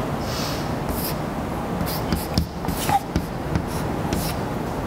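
Chalk writing on a blackboard: a string of short, irregular scratches and taps from the chalk strokes over a steady background hiss.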